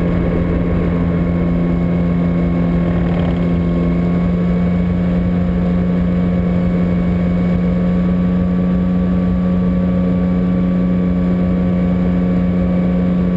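Steady drone of the Long-ESA electric airplane's motor and pusher propeller, heard inside the cockpit, with a constant low hum over a dense rushing noise.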